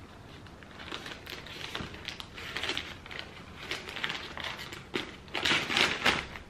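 Scissors cutting through a plastic poly mailer, the plastic crinkling as it is held and snipped: a quick run of snips and crackles that grows louder near the end.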